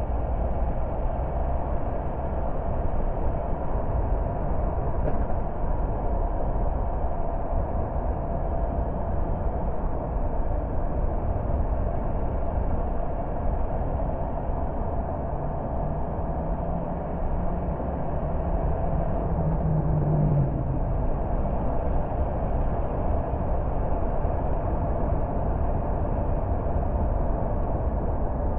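A car driving steadily, with a continuous rumble of engine and road noise. About fifteen seconds in, a low hum rises gradually and then fades again a few seconds later.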